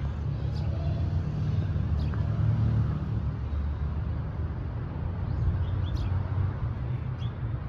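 Steady low outdoor rumble, with a few faint clicks and ticks.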